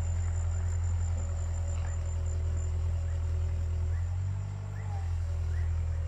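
Caterpillar 305.5E2 mini excavator's diesel engine running steadily under work, its note dipping briefly about four seconds in. Insects chirp faintly behind it: a high whine that fades in the first seconds and short repeated chirps near the end.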